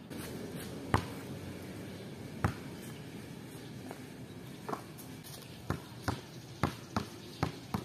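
A series of sharp knocks over a low steady background: two spaced well apart, then from about two-thirds of the way through a quicker run at roughly two a second.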